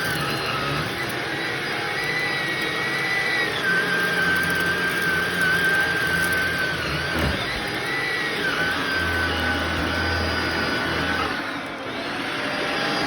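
Shark vacuum cleaner running on a shag rug, a steady motor whine over the rush of suction, its pitch shifting up and down as the load on the motor changes, with a brief dip near the end.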